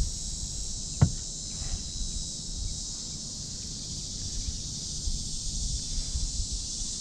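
Steady high-pitched insect chorus with wind rumbling on the microphone; a single sharp knock about a second in.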